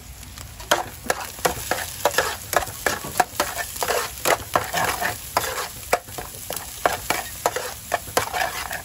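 Metal spatula scraping and knocking against a wok as egg and chilies are stir-fried, over frying oil sizzling. The strokes start about a second in and come quickly, about three a second.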